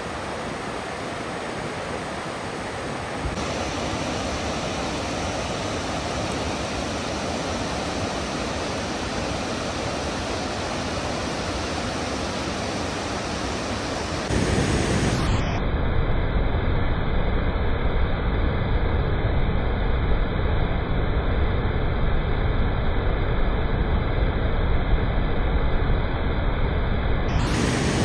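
Waterfall: a steady rush of falling water, louder and fuller in the low end from about halfway through.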